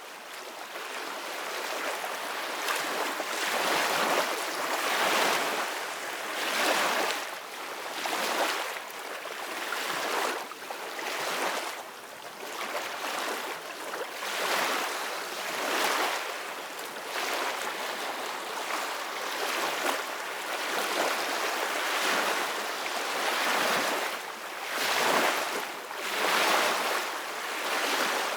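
Ocean waves breaking on a beach: a steady rushing surf that swells and fades every second or two.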